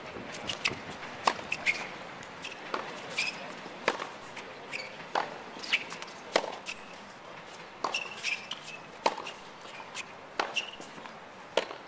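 Tennis rally on a hard court: sharp pops of the ball off the racket strings and its bounces on the court, about one a second, some louder than others.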